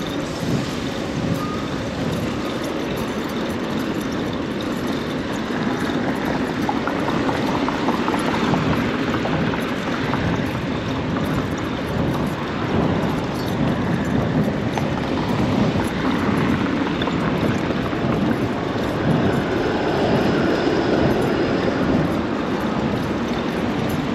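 Rush-hour city street traffic heard from a moving bicycle: a steady, even din of passing vehicles, with no single sound standing out.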